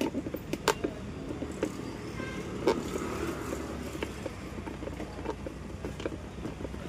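A large screwdriver working loose a tight, rusted coupler on a mixer grinder's motor shaft: irregular metallic clicks, knocks and scrapes, a few sharper ones, over a steady low hum.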